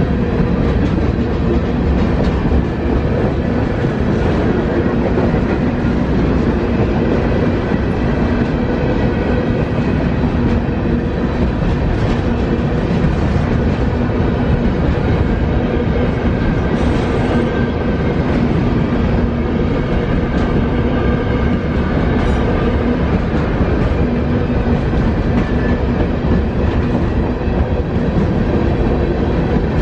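Covered hopper cars of a freight train rolling past close by: a steady, loud rumble of steel wheels on the rails, with wheels clicking over the rail joints.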